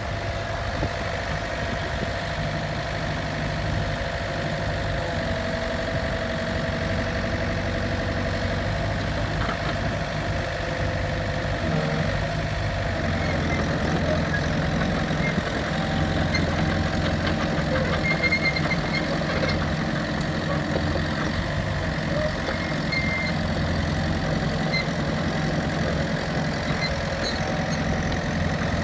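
Diesel engine of a Komatsu PC-series hydraulic excavator running steadily. Its note changes and grows slightly louder about twelve seconds in.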